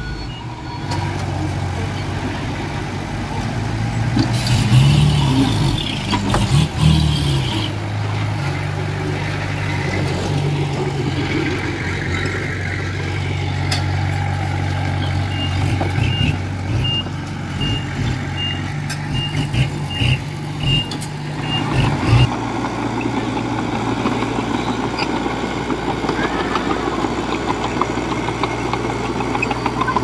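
Diesel engines of heavy earthmoving machines (bulldozer and dump trucks) running, with a brief rev about four to seven seconds in. Midway a reversing alarm beeps about twice a second for some six seconds, the sign of a machine backing up.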